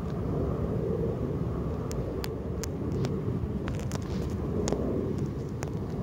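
Low, uneven outdoor rumble, with a few faint clicks in the middle.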